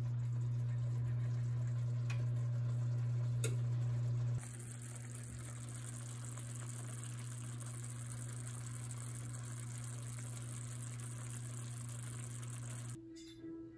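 A steady low hum with a couple of faint clicks; then, about four seconds in, a pan of meat tomato sauce simmering on the stove, a soft continuous sizzle over the hum.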